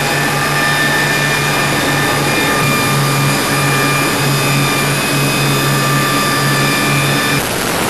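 Cabin noise of a Mil Mi-26 heavy helicopter in flight: a loud, steady rush from its twin turboshaft engines and rotor, with several high whining tones over a low, pulsing hum. The whining tones cut off near the end.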